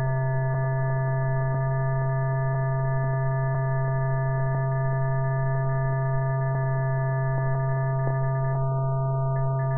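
Steady low electrical hum with a ladder of fainter overtones, on an old film soundtrack with a narrow, muffled range, and faint ticks about once a second.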